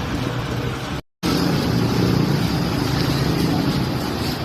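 Steady rumbling street traffic noise, cutting out completely for a moment about a second in.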